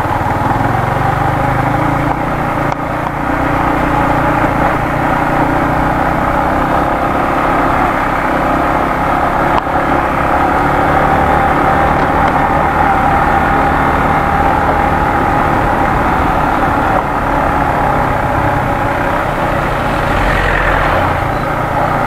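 Yamaha MT15's single-cylinder engine running steadily as the motorcycle rides along a rough track.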